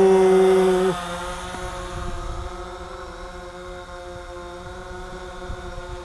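DJI Phantom 4 quadcopter hovering close by, its propellers giving a steady hum of several even tones, with gusts of wind rumbling on the microphone.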